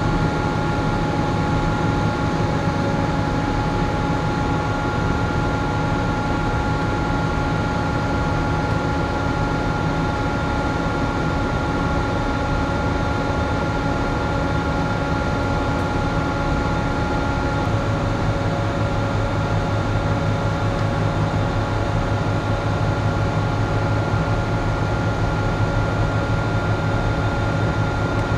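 Steady drone of a moored ship's onboard machinery and ventilation heard inside the vessel: a low rumble with a few steady tones above it. The low hum shifts to a slightly lower pitch about two-thirds of the way through.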